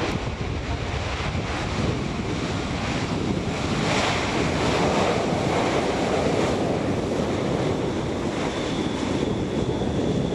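Jet noise from an Airbus A330-300's Rolls-Royce Trent 700 engines as the airliner rolls out on the runway just after landing, a loud steady rushing rumble. A thin high whine comes in near the end.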